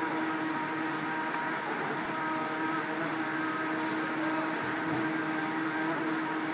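mk North America flat belt conveyor running, its drive giving a steady hum with several constant higher tones.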